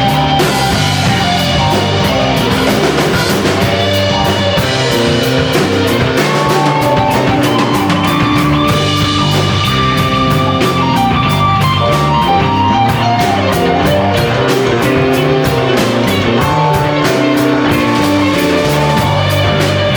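Live rock band playing an instrumental passage: electric guitar holding long notes over a steady drum-kit beat.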